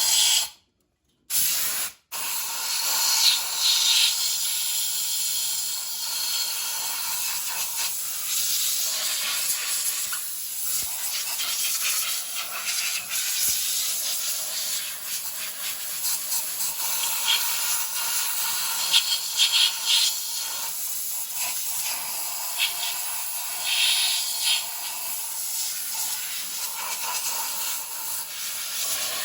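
Compressed-air blow gun hissing steadily, blowing out the knock sensor holes in an LS engine block, after a brief silence near the start.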